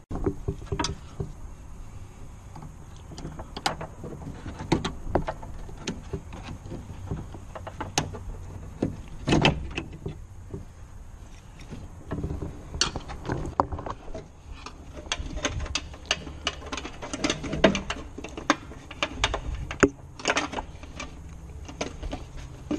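Irregular clicks, knocks and rattles of a VW Golf Mk4's plastic door carrier panel, the window regulator module, being handled and fitted against the door's metal frame.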